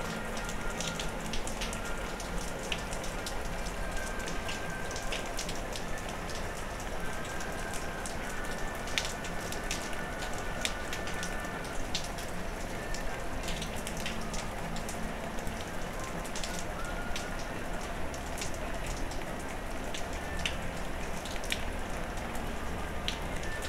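Steady rain falling, with frequent sharp ticks of drops striking close by.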